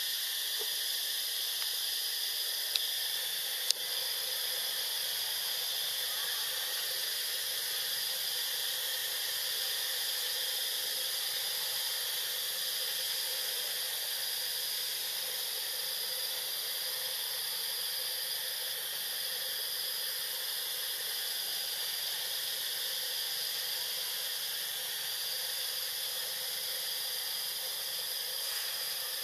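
Steady high-pitched drone of an insect chorus in tropical forest, holding a few shrill tones that drop out and come back now and then, with two brief clicks about three seconds in.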